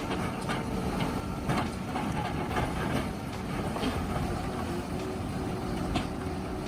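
Komptech Crambo 6000 log shredder running steadily under load, with scattered sharp cracks and knocks as the logs are shredded.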